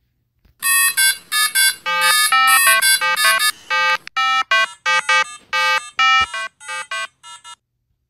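A rapid string of synthesized electronic beeps at changing pitches, like a chiptune ringtone melody, serving as a cartoon cassowary's 'happy' sound. It starts about half a second in, and the notes grow shorter and sparser toward the end.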